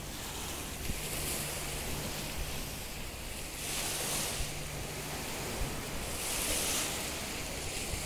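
Sea water washing and lapping in slow surges, each swelling and fading every couple of seconds, with wind buffeting the microphone.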